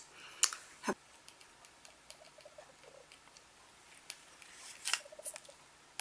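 Male budgerigar softly cooing to plastic maraca toys, the quiet murmuring call a budgie makes when feeding a mate or chicks, here directed at the toys. A few faint taps of its beak on the plastic.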